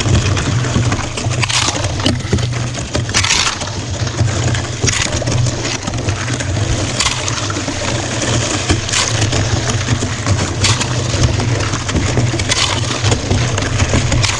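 Lake ice crunching and cracking continuously as a kayak pushes through it, with a louder crunch about every two seconds.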